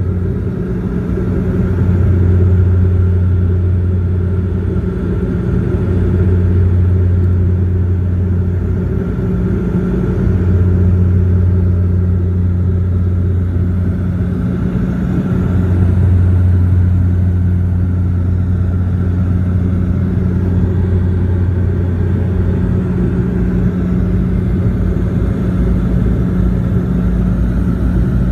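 Steady in-flight cabin drone of a turboprop airliner, a deep propeller hum with a second tone above it that fades and returns several times.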